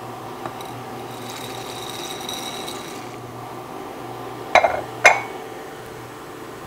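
Saucepan of water at a rolling boil, a steady bubbling hiss as dry elbow macaroni is poured in. Past the middle come two sharp clunks about half a second apart as the emptied bowl is set down on the stone countertop.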